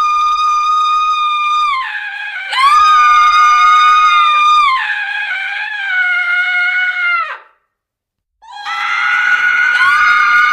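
Women screaming: a series of long, high-pitched held screams, one after another, with a short break about seven and a half seconds in before the next scream begins.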